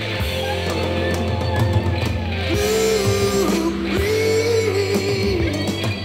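Classic rock track playing through JBL Synthesis 1400 Array BG loudspeakers and picked up by a microphone in the room. This stretch is instrumental: a lead guitar holds and bends long notes over steady bass and drums.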